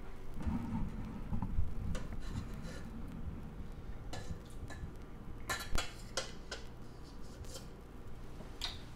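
Stainless steel mixing bowl scraping and clinking against a drinking glass as thick eggnog is poured from it. There are scattered light clicks, most of them a little past halfway.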